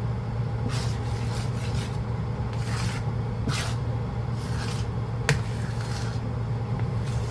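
Spoon scraping and rubbing against a pot or bowl as the calamay mixture is stirred, in repeated uneven strokes, with one sharp click about five seconds in. A steady low hum runs underneath.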